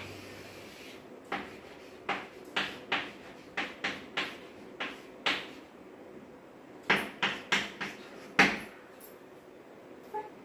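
Chalk tapping and knocking against a blackboard while an equation is written: irregular sharp taps throughout, with a quicker run of them between about seven and eight and a half seconds in, the last of these the loudest.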